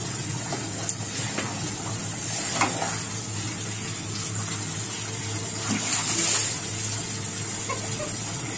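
Tap water running steadily into a plastic bucket, splashing onto the water already in it.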